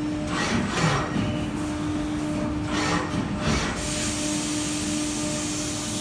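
SW BA 422 CNC horizontal machining center cutting under flood coolant: a steady machine whine, with two louder rushing bursts of cutting and coolant spray about half a second in and from about two and a half seconds in, then a steady hiss of coolant spray.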